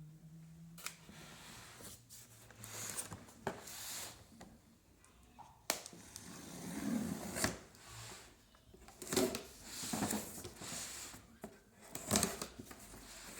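A cardboard box of bottles being unpacked by hand: irregular rustling, tearing and crinkling of packaging, with scattered sharp knocks.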